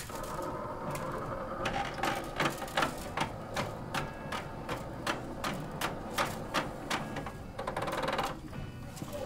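Filament being fed into a Stratasys F123 material bay: a very regular run of sharp mechanical clicks, nearly three a second, followed by a short rush of noise near the end.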